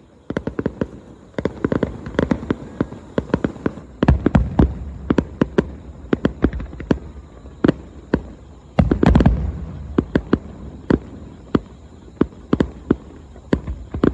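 Aerial firework shells bursting in rapid succession: sharp bangs several times a second over a low rumble, loudest in a dense cluster about nine seconds in.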